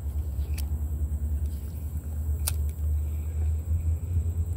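Low, uneven rumble of wind buffeting the microphone on open water, with a sharp click about two and a half seconds in and a fainter one near the start.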